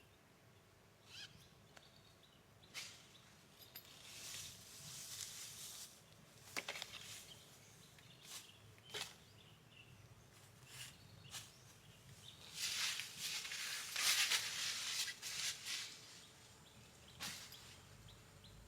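Jungle ambience with scattered short bird chirps and calls. Two stretches of rustling hiss rise over it, the louder about two-thirds of the way through.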